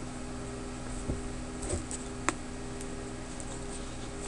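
Quiet room tone: a steady electrical hum with hiss, broken by three faint, short clicks in the first two and a half seconds.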